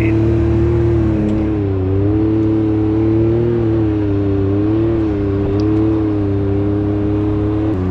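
Can-Am Maverick X3 side-by-side's turbocharged three-cylinder engine running under way at a fairly steady speed, its pitch rising and falling a little with the throttle.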